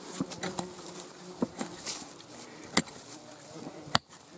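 A hand digging tool strikes loose soil and stones about five times, the loudest strike near the end. A buzzing insect hums steadily near the microphone.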